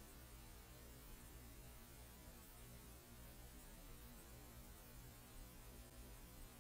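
Near silence: only a faint steady low hum and hiss.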